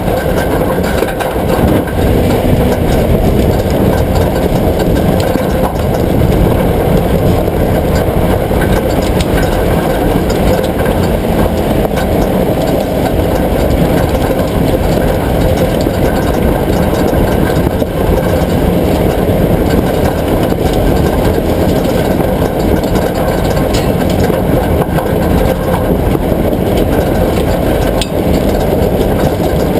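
A vehicle's engine running steadily, a dense low rumble with no clear change in speed.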